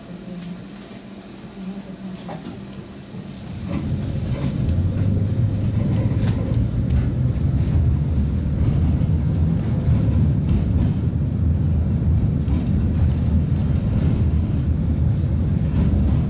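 Tatra T3 tram riding on its track, heard from inside the car. A quieter steady hum for the first few seconds gives way about three and a half seconds in to a loud, steady rumble of wheels and running gear that holds to the end.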